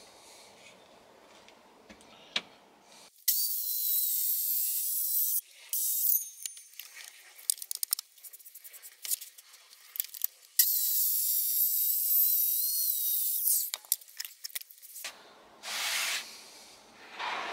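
Power saw cutting a solid wood worktop board in loud runs: a burst about three seconds in, then a longer cut of about three seconds midway, with a whine that wavers as the blade meets the wood. Near the end comes a softer rub of a hand brushing sawdust off the wood.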